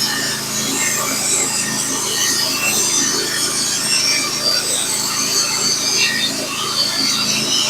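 Norwood HD36v2 portable bandsaw mill, fitted with a Stellicut band, sawing a board lengthwise off a log. The band's steady rasping cut runs over the even hum of the mill's engine.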